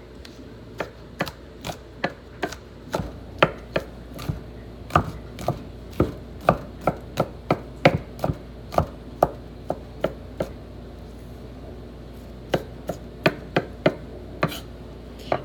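Knife chopping vegetables on a cutting board in steady strokes, about two a second, stopping for about two seconds near the end before a few more strokes.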